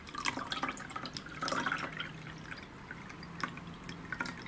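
Water dripping and splashing lightly, among scattered small clicks and taps from handling, with a brief louder splash about a second and a half in.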